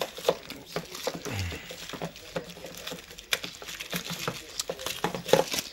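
Thin plastic packaging bag crinkling and rustling as it is torn open by hand, a steady run of irregular small crackles.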